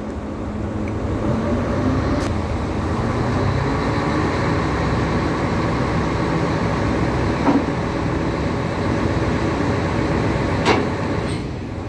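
Terex AC250-1 mobile crane's hydraulic outrigger beam extending under power: the engine and hydraulic system run with a steady hum that rises about a second in and eases off near the end. A few sharp clicks sound along the way, the clearest near the end.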